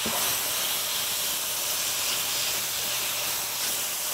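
Raw strips of duck breast sizzling in a hot pan with stir-fried carrots and mushrooms, a steady frying hiss as the meat starts to sear.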